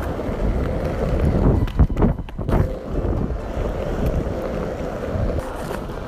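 Wind buffeting the microphone: a loud, steady low rumble, with a couple of sharp knocks about two seconds in.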